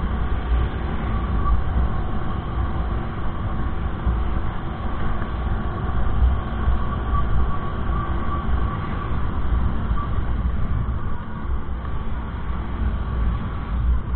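Honda Click 125i scooter's single-cylinder engine and belt drive running at a steady cruising speed, with wind rumbling on the camera's microphone.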